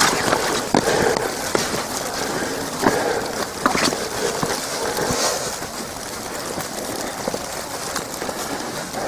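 Footsteps swishing through wet grass, with wet snow ticking and pattering on an umbrella held just over the microphone, and a few sharper knocks.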